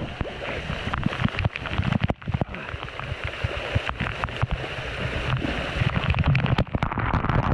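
Rushing, splashing canyon water, with a low rumble and many small knocks throughout.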